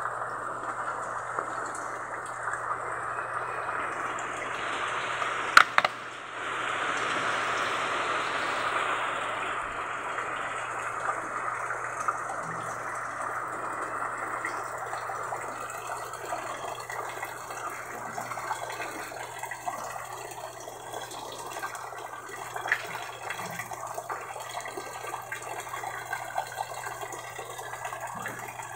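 Heavy rain pouring and splashing onto a puddled concrete yard, a steady hiss of falling water that is heaviest a few seconds in and eases a little later. A single sharp click about six seconds in.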